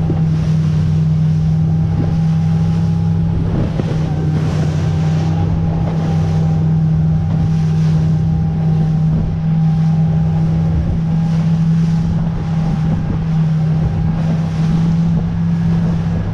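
Motorboat engine running at a steady cruising speed, a constant low drone with a faint whine above it. Wind buffets the microphone and water rushes past the hull.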